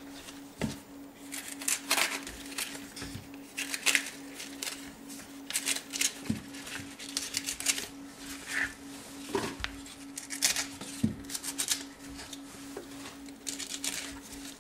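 Kitchen knife cutting and trimming leek leaves on a plastic cutting board: irregular crisp slicing strokes and leaf rustles, a few every second or so. A steady low hum runs underneath.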